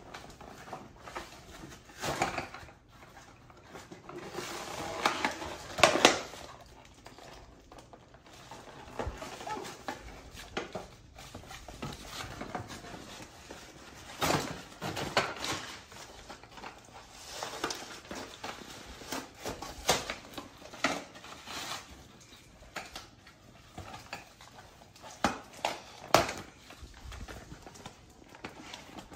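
Cardboard and plastic toy packaging being pulled and torn open by hand, making irregular scraping, tearing and crinkling noises, with the sharpest bursts about six seconds in and near the end.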